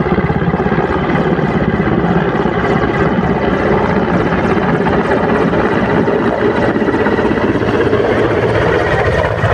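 Mi-17 helicopter's main rotor and twin turboshaft engines, loud and close, a steady rapid beating of the rotor blades as it comes in low to land at the helipad.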